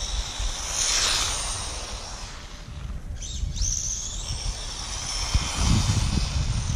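Brushless motor of a LaTrax VR46 Rally RC car on a 2S battery, whining high as the car runs flat out along the street; the whine climbs in pitch about three and a half seconds in.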